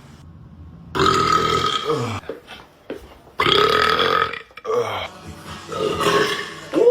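A man belching loudly several times in a row, each burp about a second long with short quiet gaps between.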